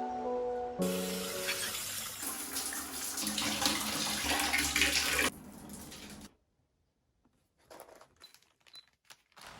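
Water running from a tap into a sink for about four and a half seconds, then cut off. A few faint small ticks follow near the end.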